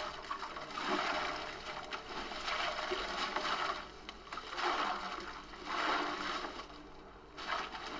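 Ice cubes being emptied from plastic bags into a tub of water for an ice bath, rattling and splashing in several pours.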